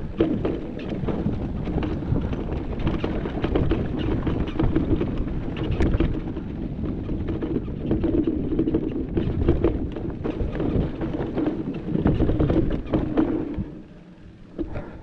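Mountain bike clattering over a rough dirt trail: tyres on dirt and stones, chain and frame knocking and rattling, with wind on the microphone. Near the end it goes much quieter as the bike comes to a stop.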